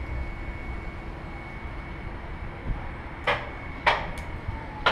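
Low rumble with a faint steady hum, then, in the last couple of seconds, three sharp metallic clicks of harness hardware being handled.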